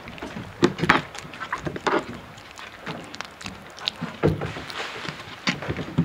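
Irregular knocks, taps and scuffs from white-throated capuchin monkeys' hands and feet moving about on a deck right beside the microphone, with a few louder thumps.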